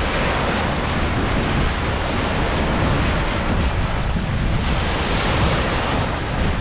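Heavy surf rushing and breaking on the shore, swelling at the start and again about five seconds in, with wind buffeting the microphone.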